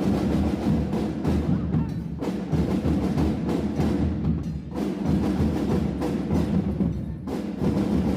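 School drumline playing a drum cadence: many drums struck together in a dense, steady rhythm.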